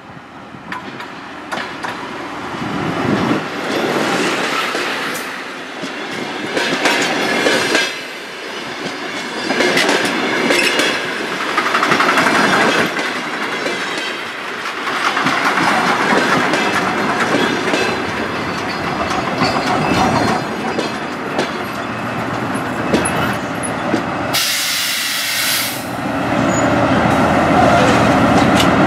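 DR1A diesel multiple unit's coaches rolling past close by as the train slows into the station, wheels clacking over the rail joints in repeated swells. A brief loud burst of hiss comes about 25 seconds in.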